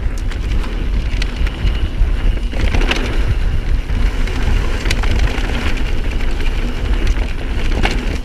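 Mountain bike ridden fast down a dirt trail: wind rumbling on the microphone over tyre noise, with a few sharp clicks and knocks from the bike rattling over bumps.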